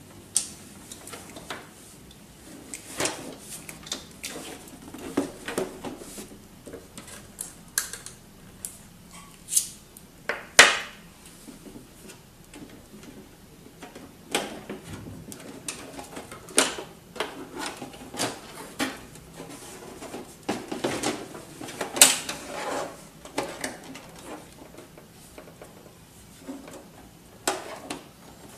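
Hands handling and taking apart the plastic casing of an HP Deskjet F2410 all-in-one inkjet printer: irregular clicks, knocks and rattles of plastic parts, with a few louder knocks.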